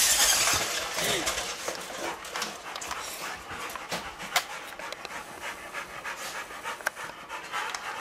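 Rottweiler panting steadily, with a few sharp clicks, the loudest about four and seven seconds in.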